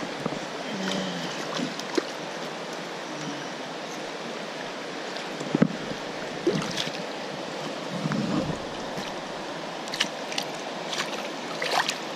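River water running and gurgling right at the microphone, with several short sharp splashes and knocks as a hand moves in the water, the loudest about a third of the way in and near the end.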